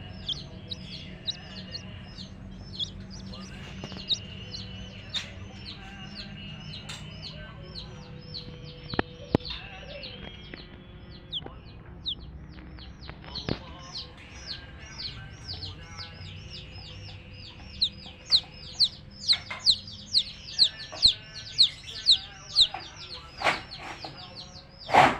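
Baby chicks peeping continuously, a dense stream of high, falling cheeps several times a second, with a hen clucking. Near the end comes a run of louder, short sounds.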